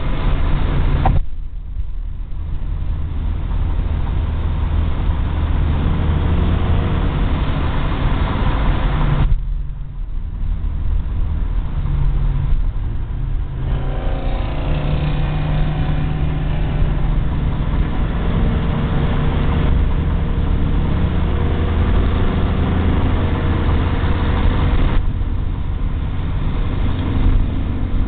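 Engine and road noise inside the cabin of a 1970 Ford Mustang cruising at motorway speed, with the engine note stepping up and down in pitch a few times.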